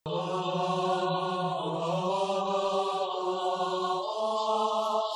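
Intro music of sustained, chant-like held tones over a low drone, shifting slowly in pitch; the low note steps up about four seconds in.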